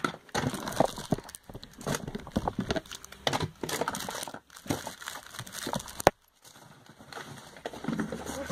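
Plastic packaging rustling and crinkling as items are handled, with scattered small knocks and a single sharp click about six seconds in.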